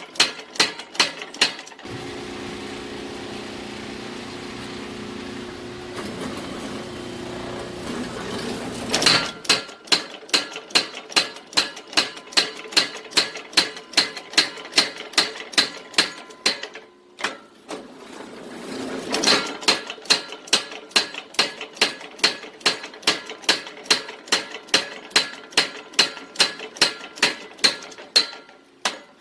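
Steady, rhythmic hammer blows on hot steel at an anvil, about two to three strikes a second, forging 5160 high-carbon spring steel into a vise spring. Early on the hammering stops for several seconds while a steady hum sounds, and it pauses briefly again near the middle.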